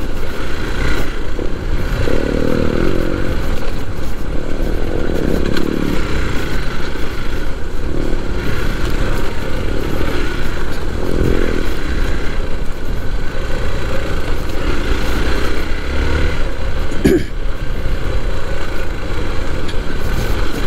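Hero Xpulse 4V single-cylinder motorcycle engine running while being ridden, its sound swelling and easing every few seconds with the throttle.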